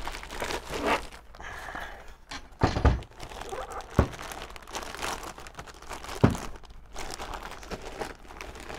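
A clear plastic bag crinkling around a dot-matrix printer as the printer is lifted and handled, with three dull thumps about three, four and six seconds in.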